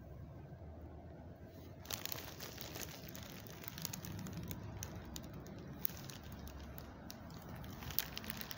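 Rustling, crackling handling noise with scattered sharp clicks, starting about two seconds in; the sharpest clicks come just before six seconds and near the end.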